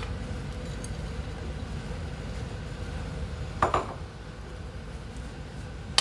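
Wooden spatula stirring and scraping dry roasting semolina with raisins in a nonstick wok. A sharp click comes at the start, and a louder knock of the spatula against the pan comes about three and a half seconds in, over steady low background noise.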